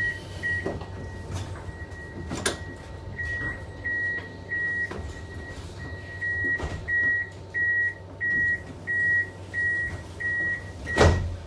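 Tram door warning beeps: a high electronic beep repeating about every 0.6 s, pausing briefly and then resuming, ended near the end by a loud thump as the doors shut.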